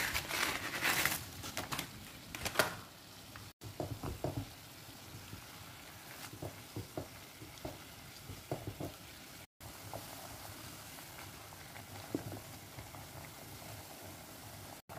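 Water at a rolling boil in a pan, bubbling steadily, with hakka noodles splashing about in it; louder splashing and knocks come in the first few seconds, then scattered light knocks of a wooden spatula stirring the noodles.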